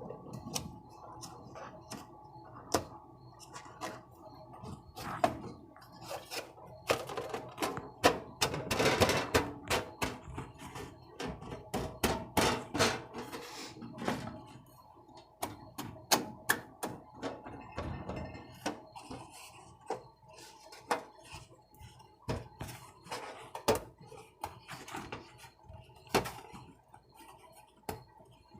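Irregular clicks, taps and knocks of the sheet-metal drawer parts being handled and worked, busiest about a third of the way in, then thinning out.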